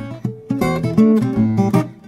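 Background music: an acoustic guitar playing a run of single plucked notes.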